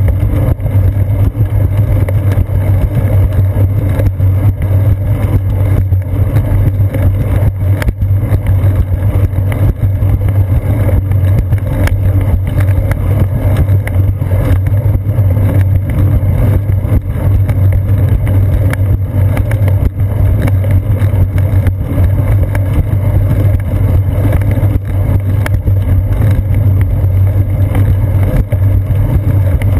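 Steady low rumble of wind buffeting and riding vibration picked up by a seat-post-mounted GoPro Hero 2 in its housing as the bicycle rolls along a concrete path.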